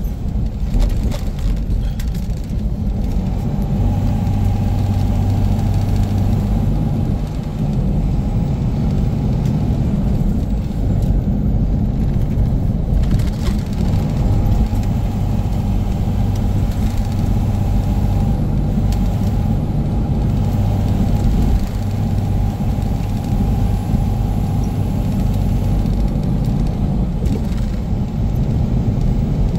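Semi truck's diesel engine running steadily while the loaded truck is driven down the highway, a continuous low drone mixed with road noise. A deeper hum in the engine note fades in and out several times.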